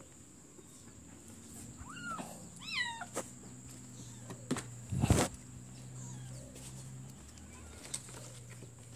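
A kitten mewing twice, two short high-pitched calls about two seconds in, followed a few seconds later by a single loud thump.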